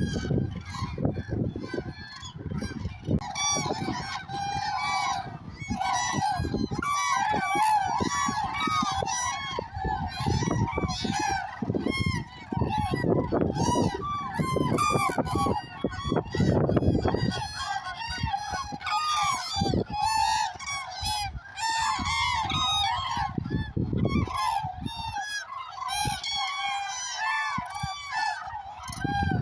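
A large flock of common cranes calling, many loud trumpeting calls overlapping into a continuous chorus. A low rumble comes and goes beneath the calls.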